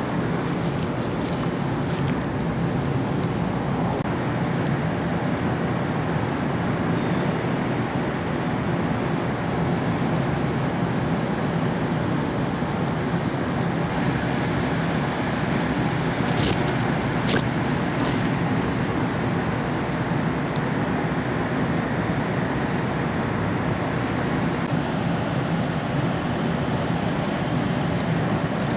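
Steady rushing background noise at an even level, with a few faint, brief high-pitched ticks or rustles around the middle.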